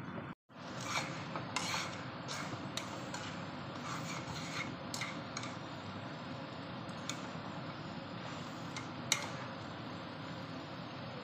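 Chopsticks tossing and stirring noodles in a frying pan, with irregular scrapes and sharp taps of the sticks against the pan over a steady background noise. The loudest tap comes about nine seconds in. A brief dropout just after the start.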